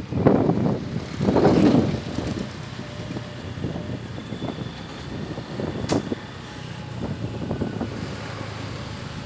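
Moving vehicle on the road with wind buffeting the microphone: loud gusts in the first two seconds, then a steady road rumble, with one sharp click about six seconds in.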